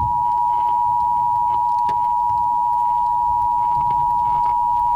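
Emergency Alert System attention signal on a car radio: a steady, loud two-tone beep (853 and 960 Hz sounded together) held without a break, announcing an emergency broadcast.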